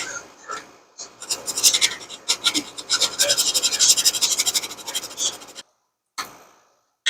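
Hand file rasping on a plastic case in quick back-and-forth strokes. It builds up about a second in, cuts off abruptly a little past five seconds, and a couple of short scrapes follow near the end.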